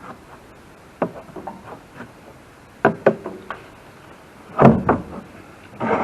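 Scattered knocks and clunks from hand work on the sawmill's fuel tank fittings, the loudest about four and a half seconds in, followed by a short scraping rustle near the end.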